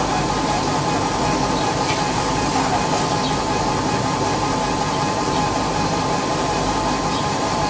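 Bodor 1309XU 150 W CO2 laser engraving machine running while it engraves glass on its rotary attachment: a steady, hissing machine noise with a faint steady tone and a few faint ticks.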